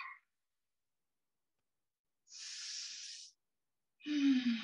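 A woman breathing audibly while holding a yoga pose. One hissing breath of about a second comes a couple of seconds in, then a longer breath with some voice in it, falling in pitch, near the end.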